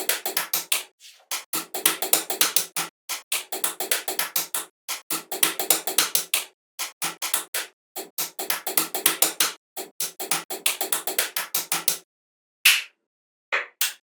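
Rapid runs of sharp clicks or taps, about ten a second, in bursts separated by short silent gaps, with a few lone clicks near the end.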